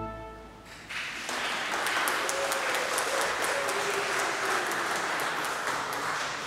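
The reverberant tail of a pipe organ's final chord dies away, and about a second later a congregation breaks into applause, which runs steadily and tapers off near the end.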